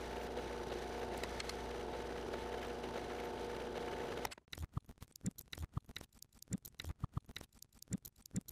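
Benchtop drill press running with a steady motor hum while its bit bores a small hole in a wooden disc. About four seconds in the hum cuts off suddenly and gives way to light, irregular clicks of small wire coil springs being handled.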